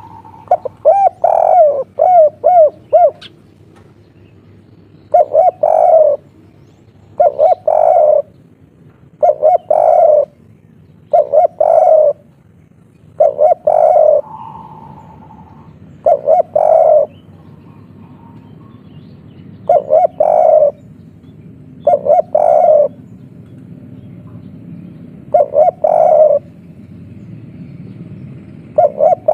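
Spotted dove cooing its 'kuk 3' song, about a dozen phrases repeated roughly every two seconds, opening with a quick run of short notes.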